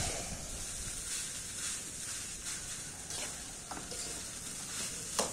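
Fried rice sizzling steadily in a wok on a portable gas stove as it is stirred, with a couple of faint clinks of the spatula against the wok.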